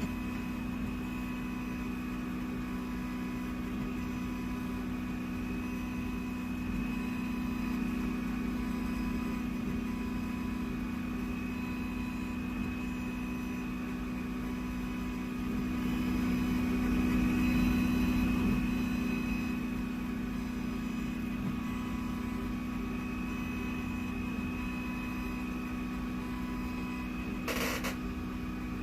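A machine running steadily with a constant hum that swells louder for a few seconds about halfway through. A short sharp noise comes near the end.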